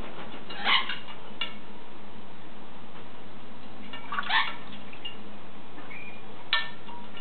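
An African grey parrot bathing in a shallow dish of water, splashing with its wings in three short bursts: about a second in, just past four seconds, and near the end.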